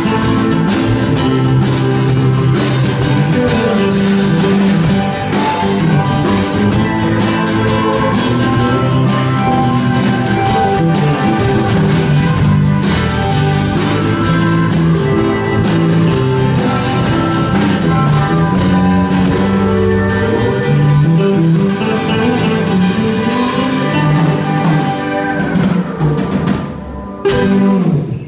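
Live country-rock band playing an instrumental passage with no singing: drums, bass, acoustic guitar and pedal steel guitar. The music winds down near the end.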